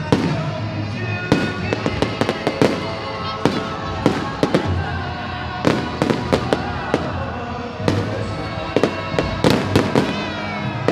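Aerial fireworks bursting: a rapid, irregular series of sharp bangs and crackles that keeps going throughout.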